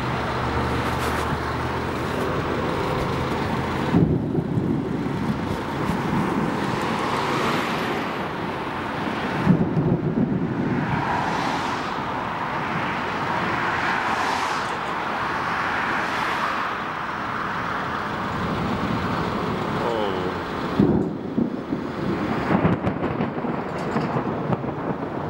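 Thunder rumbling continuously from a nearby thunderstorm, with sudden louder claps about four, ten and twenty-one seconds in.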